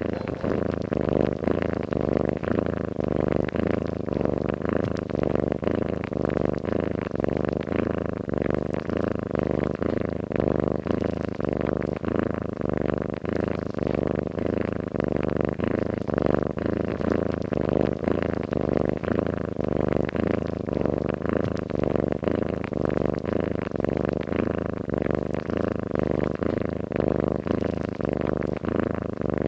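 Domestic cat purring and snoring in its sleep: a steady, rhythmic low rumble that swells and eases with each breath.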